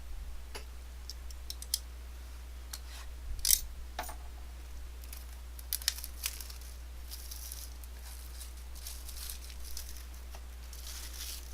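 Trading cards and their packaging being handled: scattered light clicks and taps, then stretches of plastic wrapper crinkling in the second half, over a steady low hum.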